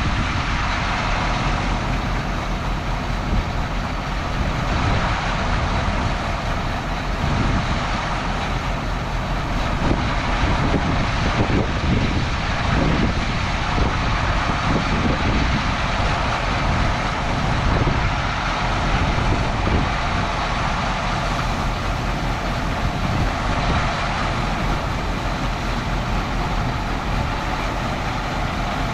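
Grain truck driving, heard from inside the cab: a steady mix of engine running and road rumble that does not let up.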